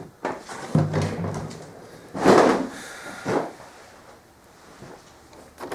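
Knocks, scrapes and rustling of tools and parts being handled, with the loudest scraping rustle about two seconds in.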